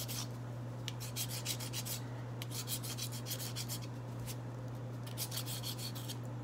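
A nail file rasping back and forth across the edge of a cast Ultracal 30 gypsum-cement rock, in several short runs of quick strokes. It is smoothing off the leftover overhang from the mold.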